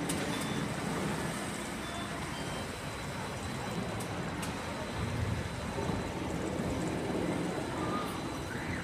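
Amusement park ambience: a steady din with a low rumble that swells about five seconds in.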